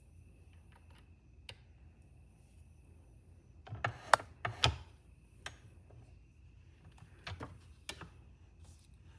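Scattered light clicks and small knocks of metal pen-kit parts being handled and pressed together, with a cluster of sharper knocks about four to five seconds in.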